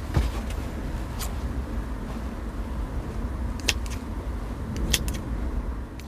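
Metal cooking tongs clicking sharply four or five times against dishes and the pot, over a steady low rumble.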